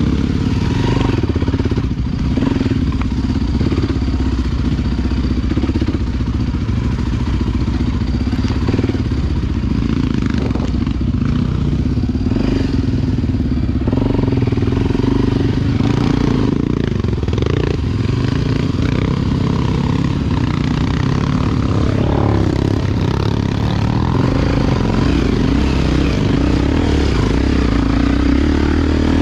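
Single-cylinder four-stroke Honda XR Tornado enduro motorcycle engine running continuously on a rough trail, its note changing with the throttle, with a step up in pitch about halfway through.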